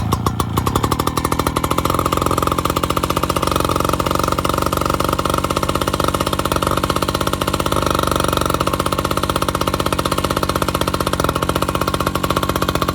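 Portable fire pump's small engine running steadily with a rapid, even firing beat; the pump was rebuilt from the parts of two faulty pumps and now runs.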